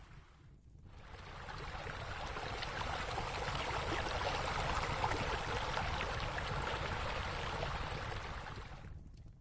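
Steady rush of falling water, as from a pool's sheer-descent waterfalls. It swells in after about a second and fades out near the end.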